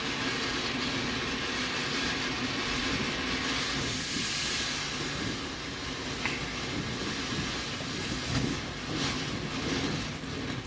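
Garden firework fountain spraying sparks with a steady, strong hiss, with a few crackles near the end.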